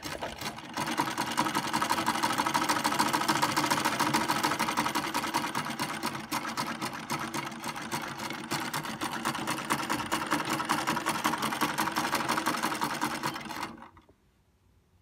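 Vintage Butterfly domestic sewing machine stitching through a scrap of cloth: a rapid, even mechanical clatter that picks up speed in the first second, runs steadily, and stops abruptly a little over a second before the end.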